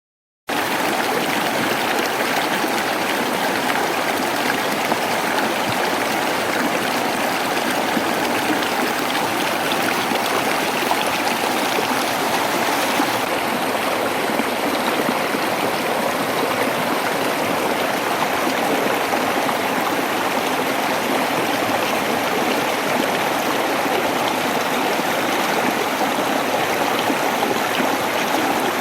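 Waterfall rushing in a steady, even wash of water noise, cutting in abruptly about half a second in.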